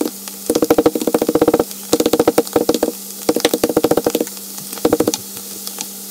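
Metal meat mallet tapping fish fillets on a plastic cutting board to flatten them, in quick bursts of rapid taps, three runs of about a second each and a short one near the end.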